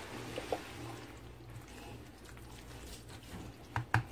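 Spatula stirring a thick, creamy tuna and corn salad in a mixing bowl: soft wet squishing, with two light knocks of the spatula against the bowl shortly before the end.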